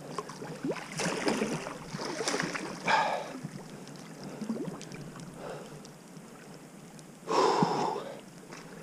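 Irregular splashing and sloshing of water from a hooked wels catfish fighting close to the bank, with the angler breathing hard between the splashes. Two louder surges of splashing, about three seconds in and again near the end.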